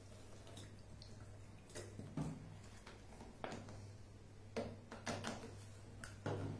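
Small plastic bottles and caps being handled while spirit is poured: a handful of light clicks and knocks, scattered irregularly, over a steady low hum.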